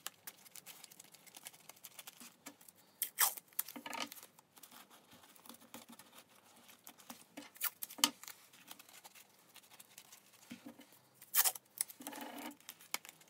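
Masking tape being pulled off the roll and torn in short, irregular rips, with crumpled newspaper crinkling as the tape is pressed around a papier-mâché puppet head.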